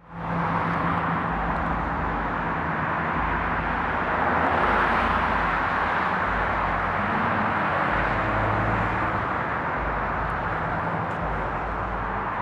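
Steady engine noise: a low hum with an even rushing hiss over it, holding level with no revving.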